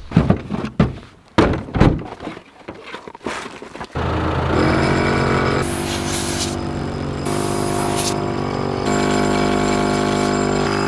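A string of sharp knocks and thuds with short quiet gaps, then, about four seconds in, background music with sustained chords that change every second or two.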